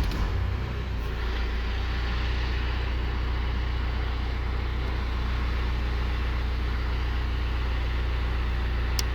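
Car engine idling steadily just after being started, a low, even hum. A single short click near the end.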